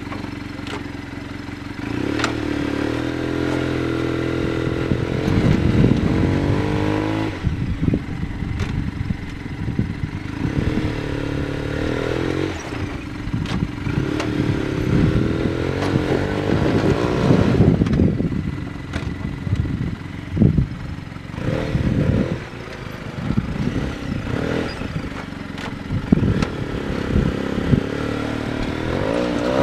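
Arctic Cat Wildcat Sport UTV engine revving in repeated surges and dropping back as the machine crawls up over rock ledges, with scattered knocks and scrapes from the tyres and underbody on the rock.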